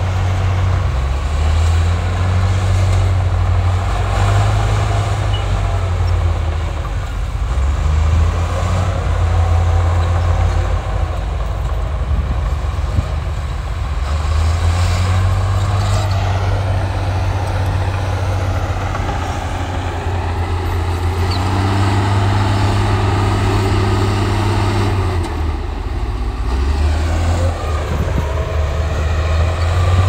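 Crawler bulldozer's diesel engine running, its low drone dropping and building again several times through the stretch.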